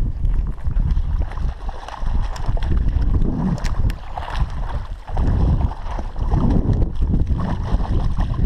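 Wind buffeting a chest-mounted action camera's microphone: a heavy, uneven rumble with a few scattered light clicks.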